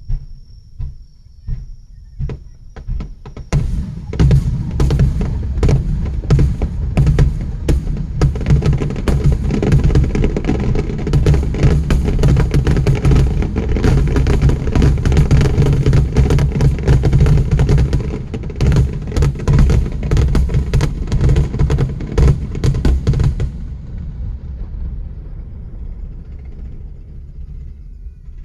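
Rapid barrage of fireworks going off: many sharp bangs a second over a continuous deep rumble. It lasts about twenty seconds and ends abruptly, leaving a fading rumble and crackle.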